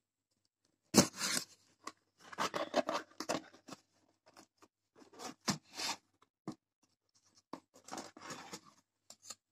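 Cardboard box being opened and handled by hand: flaps pulled back and cardboard rubbing and scraping in irregular bursts, the loudest about a second in.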